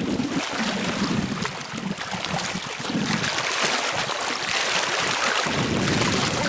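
Steady wind noise over choppy lake water splashing and lapping.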